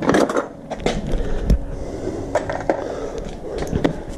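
Metal sockets and a ratchet handle clattering and clicking in a plastic socket set case as a 6 mm socket is picked out, with a dull knock about a second and a half in.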